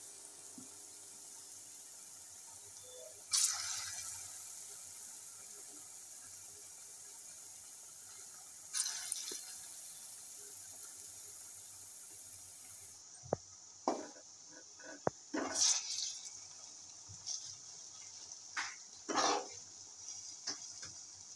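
Batter fritters deep-frying in a wok of hot oil: a steady, faint sizzling hiss with a couple of brief louder spurts. In the second half, sharp clicks and short knocks of a metal slotted spoon against the wok as the fritters are turned.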